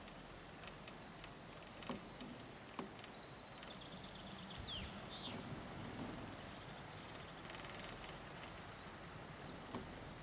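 Birds chirping several times in the middle, short high calls over a faint steady outdoor background. A few soft clicks come through, about two and three seconds in and once near the end.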